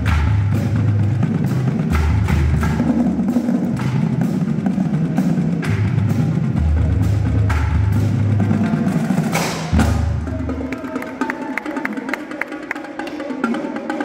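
High school marching drumline playing: bass drums in booming passages under snare strokes and cymbals. About nine and a half seconds in a cymbal crash sounds, then the bass drums drop out and lighter, rapid sharp strokes carry on.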